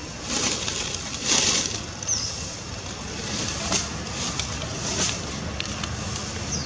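Outdoor ambience: a steady low rumble with several bursts of high hiss, the loudest about a second in, a few light clicks, and one short high chirp about two seconds in.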